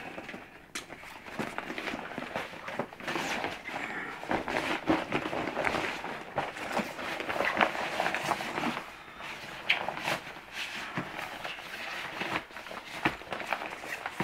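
Nylon chest waders rustling and being tugged as they are pulled on, with scuffing steps and irregular knocks as the rubber boot-feet are stepped into.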